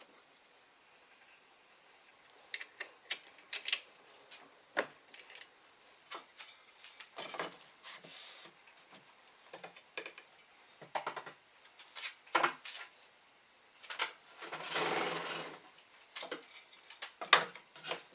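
Irregular knocks and clicks of wooden pieces and tools being handled on a workbench, with a brief scraping rush of about a second near the three-quarter mark.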